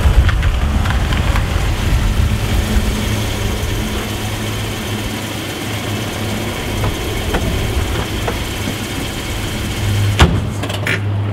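Small Mazda sedan's engine running as the car rolls into a parking space, then idling with a steady low hum. A single sharp knock near the end.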